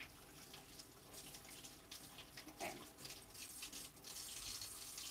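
Kitchen faucet running into the sink while potatoes are rubbed clean under the stream by hand: a faint, steady splashing that grows a little louder about four seconds in.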